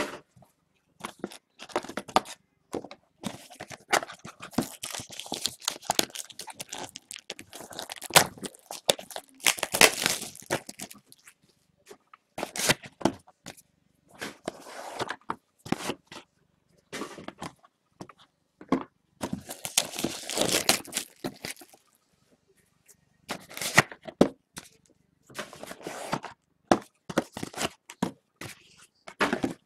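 Sealed trading-card boxes being handled and their wrapping crinkled and torn. The sound comes as irregular bursts of rustling, tearing and small knocks, with short pauses between them.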